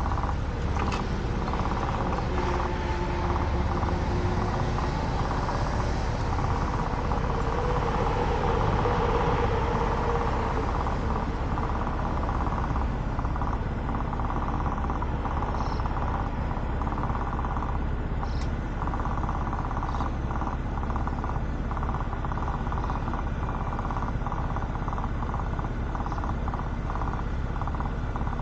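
Motor scooter engine idling steadily while stopped, with road traffic; a passing vehicle swells and fades over the first ten seconds or so.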